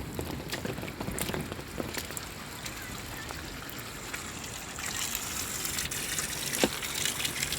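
Heavy rain pouring down, with many scattered sharp ticks of drops striking; the downpour grows heavier about five seconds in.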